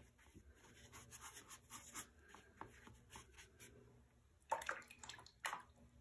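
Watercolour brush working wet paint: soft, faint scrubbing strokes, then two louder strokes near the end.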